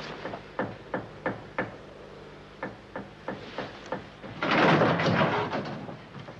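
A string of light knocks on wood, a few a second, broken about four and a half seconds in by a louder scraping rush, as of a wooden door or boards being moved.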